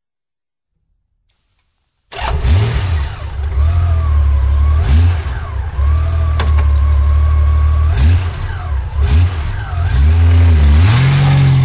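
A vehicle engine starts abruptly about two seconds in and runs, revved in several short blips, and settles at a higher speed near the end.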